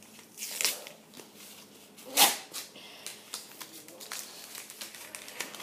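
Magic: The Gathering booster pack wrapper crinkling and tearing as it is opened by hand, in a few short bursts, the loudest about two seconds in.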